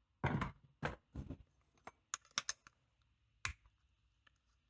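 Small tools and lock parts being handled on a workbench: a few dull knocks in the first second and a half, then a cluster of sharp light clicks about two seconds in and a couple more near the end.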